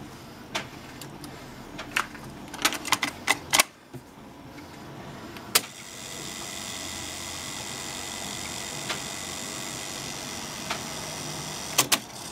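Dual C828 cassette deck being operated: a run of sharp clicks from its transport keys and mechanism, then the tape running with a steady whirring hiss, and two quick clicks near the end.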